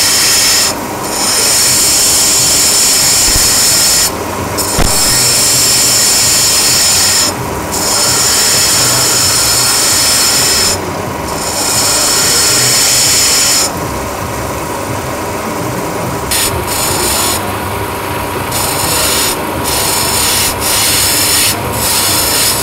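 An agate cabochon is held against the wet, spinning wheels of a motor-driven multi-wheel grinding machine, shaping and smoothing the stone. A steady grinding hiss breaks off for a moment every few seconds as the stone is lifted from the wheel. Near the end it is lifted more often, in short breaks, over the machine's faint steady whine.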